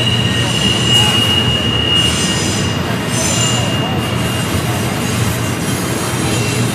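Double-stack intermodal freight cars rolling past on a sharp curve, their steel wheels squealing against the rails in a steady high-pitched tone over the low rumble of the train. Higher squeals flare up about two and three seconds in.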